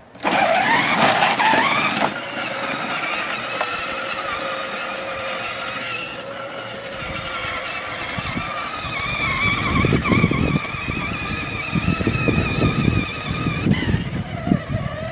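Power Wheels Yamaha Raptor ride-on toy quad's electric drive motor and gearbox whining as it pulls away, rising in pitch over the first couple of seconds, then a steady, slightly wavering whine as it drives on. A lower rumble from the wheels rolling over the ground joins about halfway.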